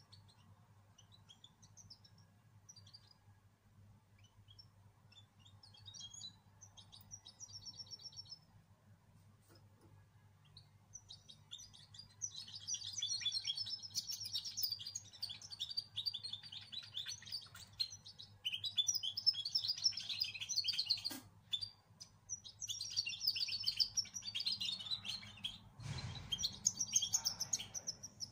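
A young cage songbird, two months old and still being trained, singing: a few faint scattered chirps at first, then from about halfway long bouts of rapid high twittering with short pauses, its song not yet fully formed. A steady low hum runs underneath, and there is a brief dull thump near the end.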